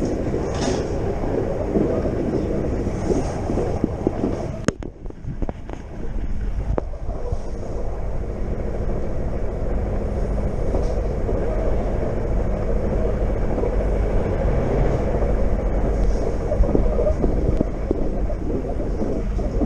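Electric passenger train running at speed, heard from inside the carriage: a steady rumble of wheels on the track. About five seconds in there is a sharp click, the noise drops briefly, then the low rumble comes back heavier.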